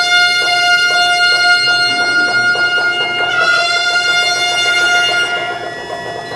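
Instrumental Tang court banquet music (yanyue) in the banshe mode: a long held wind note swells about three seconds in and fades near the end, over a steady run of plucked string notes.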